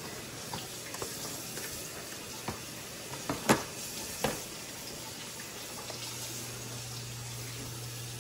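Steady hiss of hot water and steam from the canning pots, with a few light knocks and clinks of handling, and a low hum that comes in about six seconds in.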